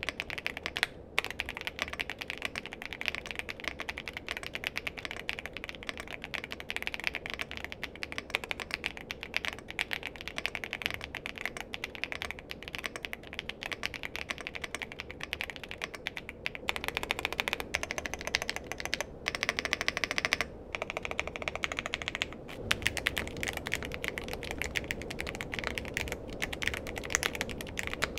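Fast, continuous typing on a Yunzii prebuilt mechanical keyboard with PBT double-shot cherry-profile keycaps: a dense run of keystrokes with brief pauses. The tone of the typing changes twice in the latter part.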